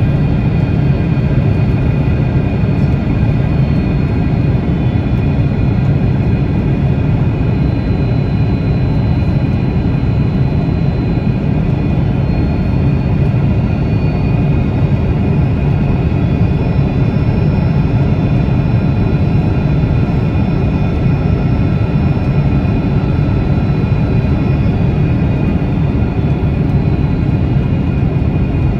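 Jet airliner's engines running steadily, heard inside the cabin as a loud even rumble with several faint whining tones held above it.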